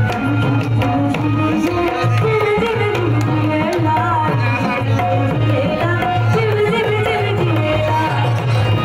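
Live folk music: a hand drum beats a steady, driving rhythm under a woman singing a wavering, ornamented melody into a microphone.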